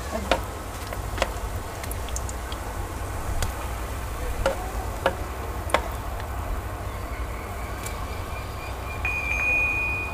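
Chicken shami kebabs frying in shallow hot oil in a pan, with scattered sharp pops and crackles over a steady low hum. A thin high steady tone comes in faintly about two-thirds of the way through and is strongest near the end.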